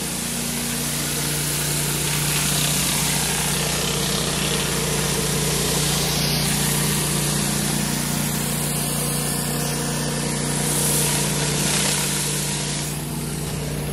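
Pressure washer running steadily: an engine hum under the loud, even hiss of high-pressure water from a rotary surface cleaner being pushed across concrete.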